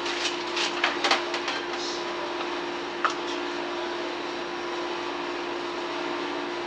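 Steady hum of a kitchen machine, a fan or motor with one constant tone over a hiss. A few light clicks and taps in the first two seconds and one more about three seconds in.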